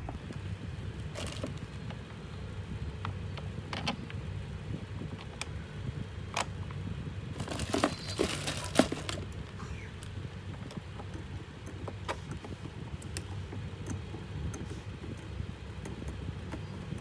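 Small parts being handled in a clear plastic bag: crinkling and clicking, densest and loudest about eight seconds in. Scattered light clicks of plastic parts come before and after, over a steady low hum.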